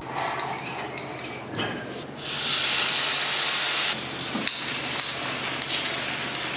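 Food sizzling and crackling in a hot pan during stir-frying, with a louder steady hiss for under two seconds about two seconds in.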